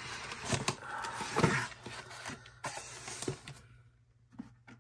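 Cardboard scraping and rustling as a brown cardboard inner box is slid out of its outer carton and set down, with a few light knocks. It goes quiet near the end.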